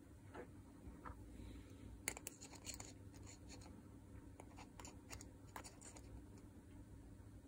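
Faint scattered clicks and light scratching from fingers handling the metal gear housing of a Makita DDF486 drill, with the loudest click about two seconds in, over a low room hum.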